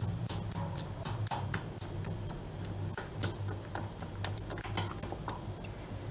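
Silicone whisk beating thick chocolate pastry cream in a stainless steel bowl, making irregular light clicks and taps against the bowl as the butter is whisked in, over a low steady hum.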